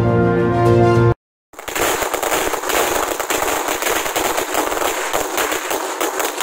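Background music cuts off about a second in; after a brief silence, a ground firework starts crackling, a dense, fast, unbroken stream of sharp cracks with no deep bangs.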